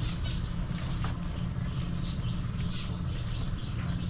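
Outdoor background: scattered high chirps, of the kind insects or birds make, over a steady low hum and a thin constant high whine.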